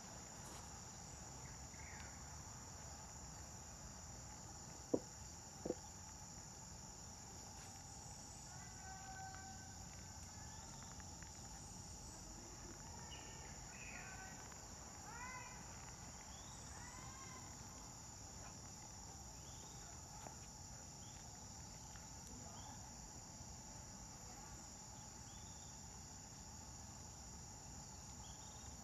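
Faint, steady high-pitched trilling of insects such as crickets, with a bird chirping several times between about 8 and 17 seconds in. Two sharp clicks about five seconds in are the loudest sounds.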